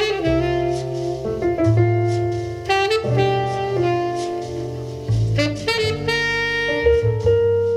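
Saxophone-led jazz with piano and a deep bass line, played back through the EyeBall desktop speakers and the small Tang Band subwoofer with a passive radiator, as a listening demonstration of the 2.1 system.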